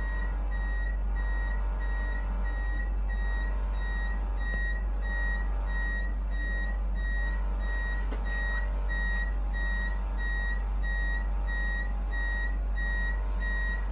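Electronic warning beeper sounding a steady run of short high beeps, about two and a half a second, over a constant low hum.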